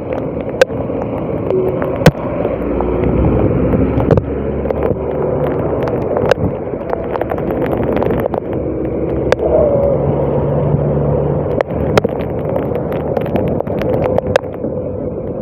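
Steady noise of a moving vehicle heard from on board, with wind on the microphone and scattered sharp clicks.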